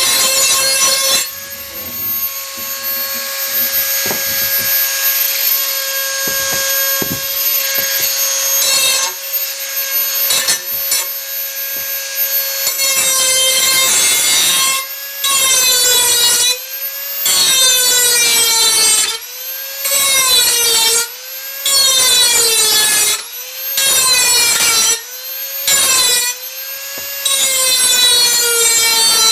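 Dremel 4000 rotary tool grinding an edge onto a steel hoe blade: a high motor whine over a grinding hiss. In the second half it goes in repeated strokes about every two seconds, its pitch sagging and recovering within each stroke as the tool is worked along the edge.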